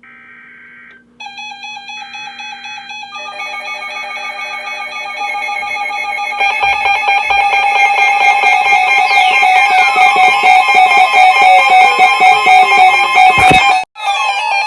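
Emergency Alert System alarm: short screeching data bursts of the alert header, then a pulsing alert tone that builds steadily louder. Several falling pitch glides are layered over it, giving a distorted, effects-laden sound, and a sharp click and a brief cut-out come near the end.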